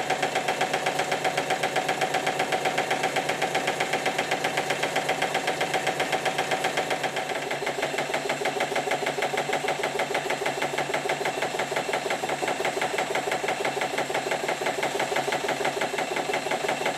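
Stuart triple expansion model marine steam engine running steadily on live steam, a fast even beat of exhaust and mechanical knocks. It knocks a little because it is not yet fully run in, and triple expansion engines are a bit rattly by nature.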